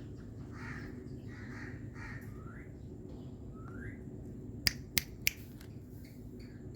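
Indian ringneck parrot giving short, soft chirping calls with little upward slides, followed by three sharp clicks in quick succession about two-thirds of the way in.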